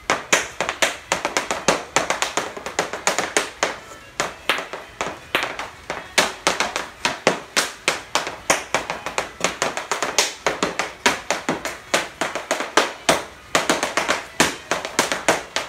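Irish dance hard shoes striking a plywood board in a fast, rhythmic series of sharp taps and stamps.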